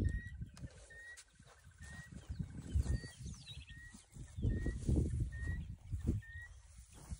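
Birds calling: a short rising chirp repeated about once a second, with a few higher falling whistles. Bursts of low rumbling noise come in about three, five and six seconds in.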